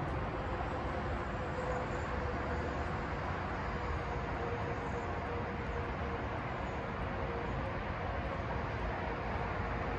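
Steady outdoor urban background noise with a faint steady hum.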